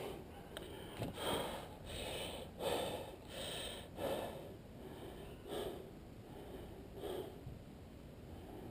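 A man breathing heavily close to the microphone, short airy breaths in and out about every second, slowly easing off.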